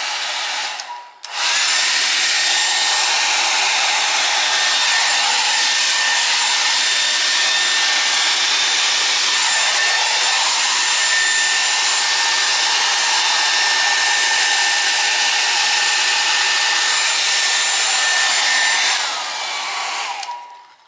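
Electric air blower running, blowing acrylic paint across a canvas in a Dutch pour: a steady rush of air with a motor whine. It runs softer at first, cuts out about a second in, then comes back louder and runs steadily before winding down near the end.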